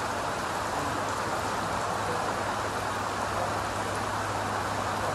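Steady rain falling, an even hiss with no let-up, over a low steady hum.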